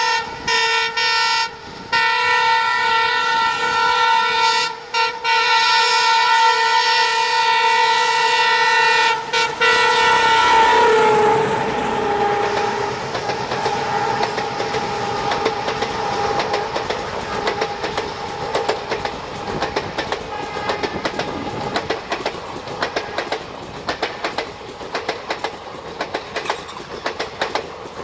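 WDM3D diesel locomotive's multi-tone horn held in long blasts with a few brief breaks, a weird-sounding replacement horn. About eleven seconds in, the horn drops in pitch and fades as the locomotive passes. The passenger coaches then roll by with a steady clickety-clack of wheels over rail joints.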